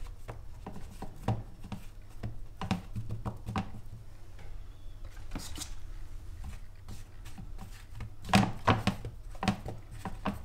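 Zucchini slices being turned in flour by hand in a plastic bowl: scattered soft taps and rustles, with a cluster of louder knocks about eight seconds in, over a steady low hum.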